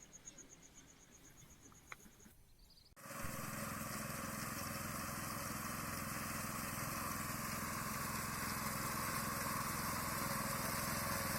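A rice-reaping machine's engine running steadily as it cuts through the paddy, its noise slowly growing louder. It starts abruptly about three seconds in, after faint insect chirping.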